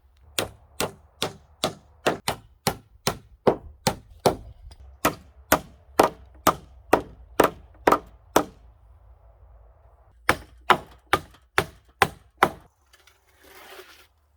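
Hammer striking timber in a steady rhythm of about two blows a second, some twenty strikes, then after a short pause six more. A brief rustle follows near the end.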